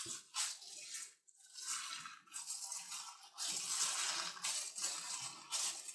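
Gloved hands kneading a filling of grated cheese, cottage cheese and egg yolks in a glass bowl: thin plastic gloves rustling and the moist mixture squishing and crunching in uneven spells.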